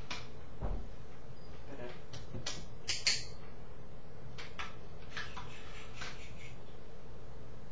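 A handheld training clicker giving a few sharp clicks, the loudest about three seconds in, among light taps and a soft thump of a cat on a wooden floor, over a steady low hum.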